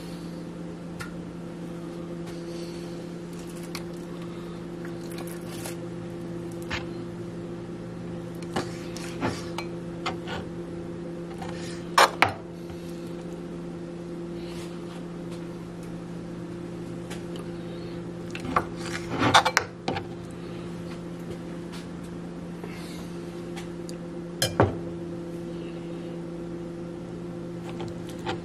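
Scattered sharp knocks and clinks of a kitchen knife against a plastic cutting board while raw chicken is cut, loudest as a pair about twelve seconds in and a cluster around nineteen seconds, over a steady low hum.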